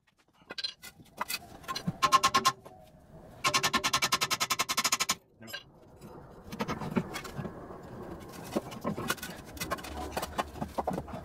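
Two runs of rapid, even metallic clicking at about ten a second, then scattered knocks and clunks as the front strut of a BMW E46 is worked loose from its lower mount.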